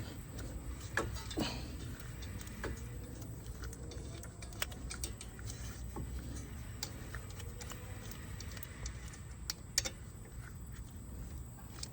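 Scattered light clicks and taps over a steady low hum, with two sharper clicks about a second and a half in and near the end.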